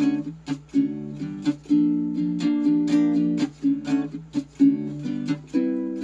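A kit-built StewMac baritone ukulele strummed, playing a run of chords that change every second or so, the strings ringing between strokes.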